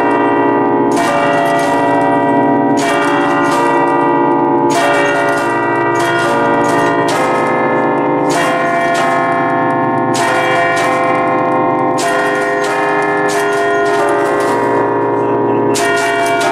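Eight-bell ring in B-flat, cast by Luigi and Giorgio Ottolina of Seregno in 1949, played festively from a baton keyboard. The clappers strike in quick clusters about every second, so the bells ring in a running melody with their tones overlapping.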